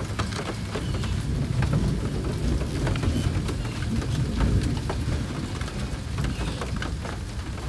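Wind buffeting the microphone in a low, uneven rumble, with scattered light clicks and taps of a small wrench working the battery terminal.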